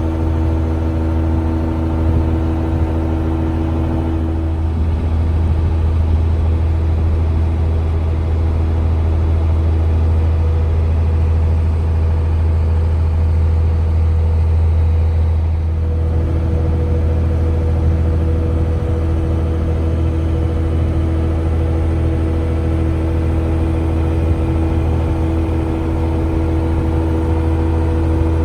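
Tour boat's engine running steadily, a constant low hum with a droning tone heard on board.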